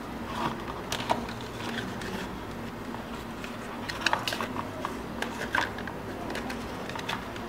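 Handling noise from a plastic smartphone, its back cover and flip case being picked up and moved around a cardboard box: scattered light clicks and taps, several close together about four seconds in, over a steady low hum.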